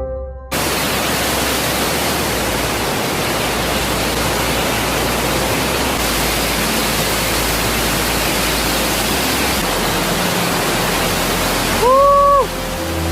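Waterfall: a steady, even rush of falling water. Near the end a single short pitched call rises, holds and drops away.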